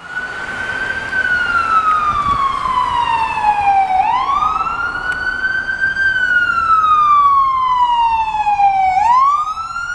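Fire-department ambulance siren sounding a slow wail, loud: the pitch climbs over about two seconds, then falls slowly for about three, and the cycle repeats.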